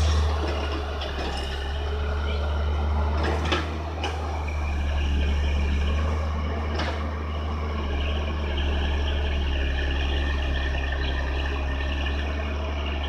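Hyundai crawler excavator's diesel engine running with a steady low drone as the machine swings and works, with a couple of short sharp knocks about three and a half and seven seconds in.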